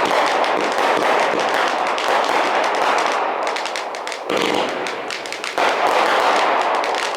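Fireworks crackling: a dense, continuous run of rapid sharp pops, with fresh louder bursts breaking in about four and five and a half seconds in.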